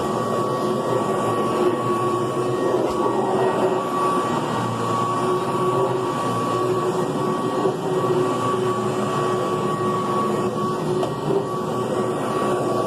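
Kirby Classic III (2-CB) upright vacuum cleaner running steadily, its motor giving a constant whine with two held tones over a rushing hum.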